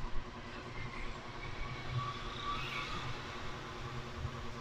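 Steady low background rumble with a faint steady hum, with no clear event standing out.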